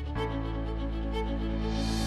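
Background music: sustained synth chords with a rising swell near the end, building into an electronic beat.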